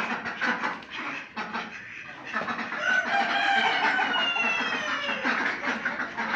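A rooster crowing once, a long call of about three seconds starting about two and a half seconds in.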